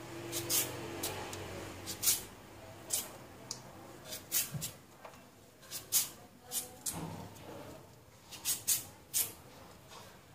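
Vegetable peeler scraping down a raw carrot in short, sharp strokes, about one to two a second at an uneven pace.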